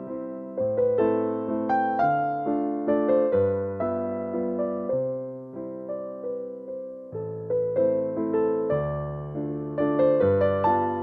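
Background music: a gentle solo piano (electric piano) melody over slow-changing bass notes, each note struck and fading away.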